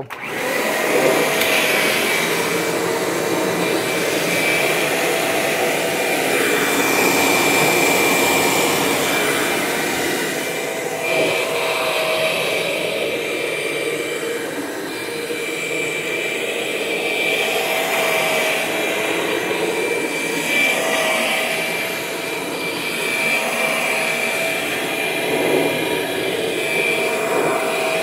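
2000 Limited Edition Kirby Generation 6 upright vacuum switched on, coming up to speed within about a second, then running with a steady whine. The whine swells and dips slightly as it is pushed back and forth over carpet.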